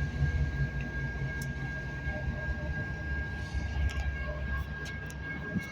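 Intermodal freight train rolling along, a steady low rumble with a thin high-pitched whine over it.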